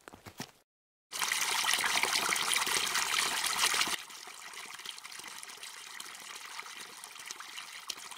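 Water poured from an earthen pot into a basin: a loud, steady splashing gush that starts about a second in and drops off suddenly about four seconds in, leaving a fainter steady trickle.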